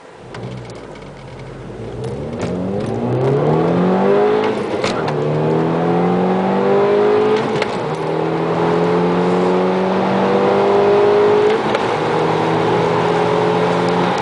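2006 Volkswagen MK5 GTI's 2.0T turbocharged four-cylinder engine accelerating, heard from inside the cabin: its pitch climbs, drops back at gear changes about five and eight seconds in, then holds near steady with the engine under load.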